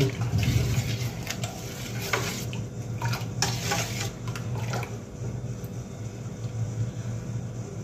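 A metal spoon adding salt and cumin powder to a pot of water and stirring it, with a few scattered clinks of the spoon against the pot over a steady low hum.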